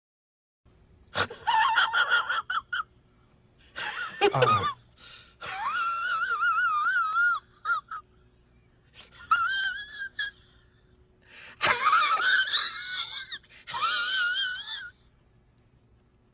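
A string of short sound-effect clips: about six high, wavering, voice-like cries with a shaky, trembling pitch, each a second or two long, separated by brief gaps.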